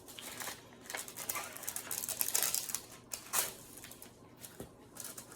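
Card packaging rustling and crinkling as the next trading card is unwrapped, in irregular scratchy bursts.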